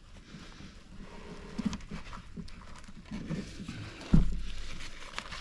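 Small clicks and scrapes of hands working a wrist-pin C-clip into place on a two-stroke piston, with one loud bump about four seconds in.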